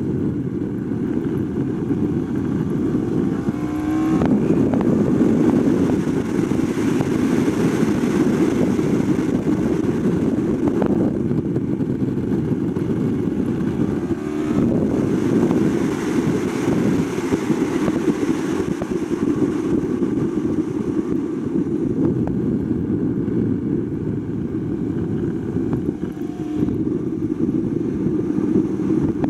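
Yamaha R1 superbike's 998 cc crossplane inline-four engine running hard at track speed, heard from onboard with wind rush. Its pitch dips and climbs again a few times, as on gear changes.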